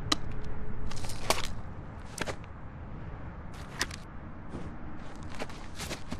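Animated-film sound effects: about six short, sharp strokes at uneven intervals over a low steady rumble, loudest in the first second and a half.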